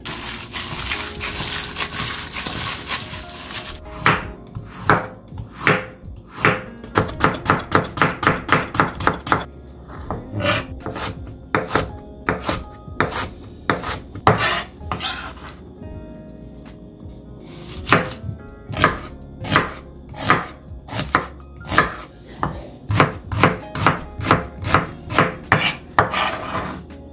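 Kitchen knife chopping food on a cutting board, in runs of quick, even strokes with short pauses between them.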